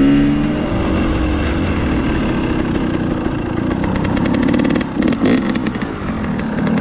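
KTM 300XC-W two-stroke dirt-bike engine running on the move. The pitch drops sharply right at the start, as on a gear change. It then runs fairly steadily, and about five seconds in the engine note dips and turns choppy before picking up again.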